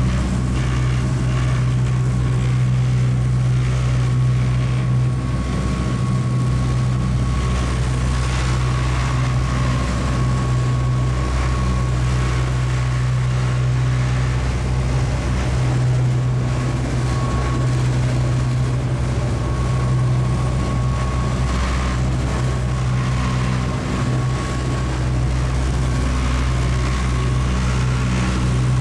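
Steady low drone of a high-speed passenger ferry's engines running, heard inside the passenger cabin, with a thin steady whine above the hum.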